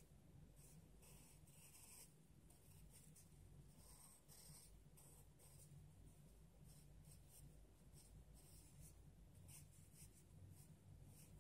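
Faint scratching of a wooden graphite pencil on paper, in short, irregular strokes as it sketches, over a low steady hum.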